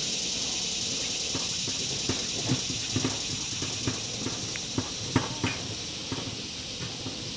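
Footsteps of a person and a dog walking on grass: irregular soft thumps starting about two seconds in, over a steady high hiss.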